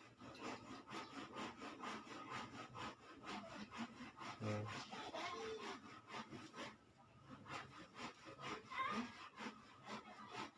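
Rapid rhythmic scraping, about five strokes a second, like sawing or rasping, which stops about seven seconds in.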